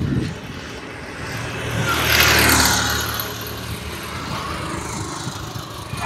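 A motor vehicle drives past close by: its engine and tyre noise swells to a peak about two seconds in, then fades away.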